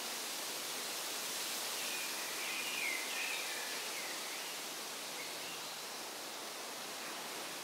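Woodland ambience: a steady hiss, with a few short wavering chirps of a bird calling about two to three seconds in.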